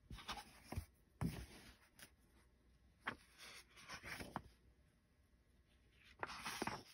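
Paperback picture book being opened and its pages turned by hand: several brief, soft paper rustles and slides.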